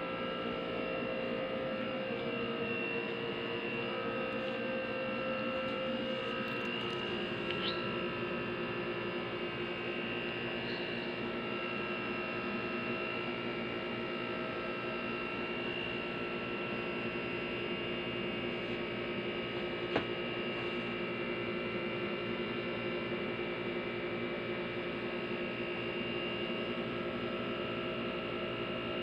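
Steady mechanical hum made of several held tones over a low hiss, with a single click about twenty seconds in.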